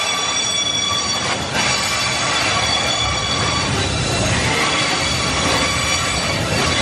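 Loaded freight wagons of eucalyptus logs rolling past, wheels rumbling on the rails with a steady high-pitched wheel squeal of several tones at once.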